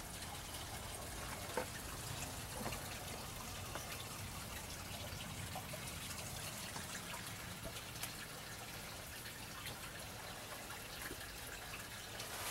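Faint steady hiss of background room tone, with a few soft knocks scattered through it.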